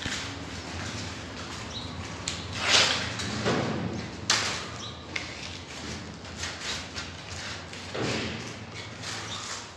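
A long strip of 180-grit sandpaper being handled and folded: paper rustling, with a few loud scraping swishes about three, four and eight seconds in.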